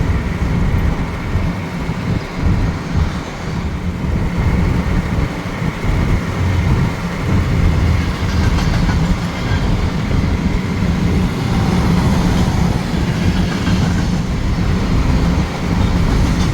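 Freight train rolling past close by: a steady low rumble with the repeated click of wheels over rail joints.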